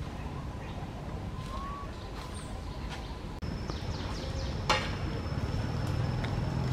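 Outdoor background ambience: a steady low rumble with scattered faint clicks. About three and a half seconds in, a thin steady high tone comes in, and a single sharp click follows about a second later.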